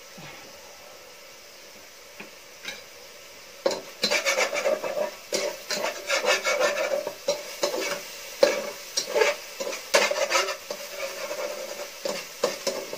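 A spatula stirring and scraping sautéing garlic and onion around a metal pot in quick repeated strokes, starting about four seconds in, over a low frying sizzle. The garlic is being sautéed toward golden brown and kept moving so it does not burn.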